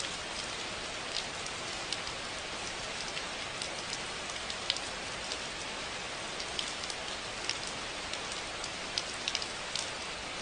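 Steady rain falling, a constant hiss with scattered individual drops ticking sharply on a hard surface.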